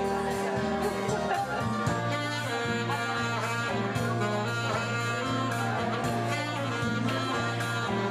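Saxophone playing a jazz melody line of sustained notes, over an accompaniment with a steady bass line and a regular beat.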